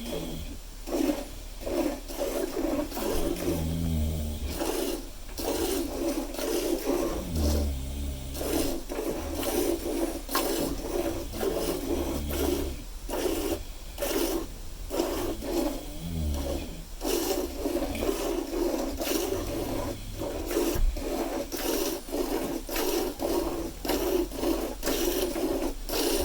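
Hand milking: milk squirting into a pail in a steady, regular rhythm of short strokes. About every four seconds a cow gives a deep, quiet snore, which dies out about twenty seconds in.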